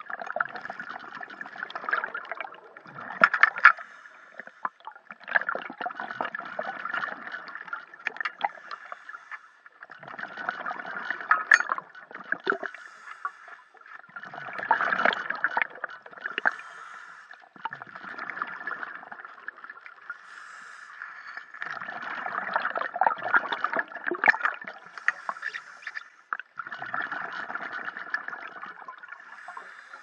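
Scuba diver's exhaled bubbles gurgling out of the regulator underwater, in bursts of a few seconds each, about seven of them with short quieter gaps between breaths.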